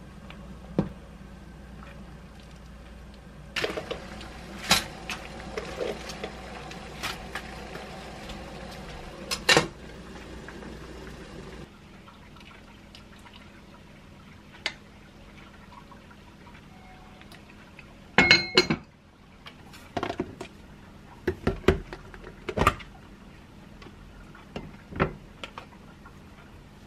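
Kitchen utensils clinking and knocking against a pot and ceramic bowls as soup is stirred, ladled out and served, with a steady low hum underneath that cuts off abruptly about twelve seconds in.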